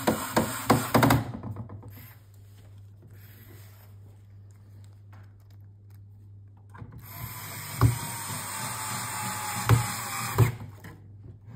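Small electric screwdriver driving screws into a car navigation head unit. It runs briefly at the start and again for about four seconds near the end, a motor whine that sags slightly in pitch, with several sharp clicks.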